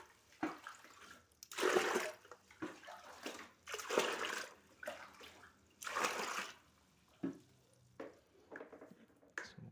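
Rainwater being bailed out: water scooped up and poured out in three main pours of about a second each, with smaller splashes and knocks between.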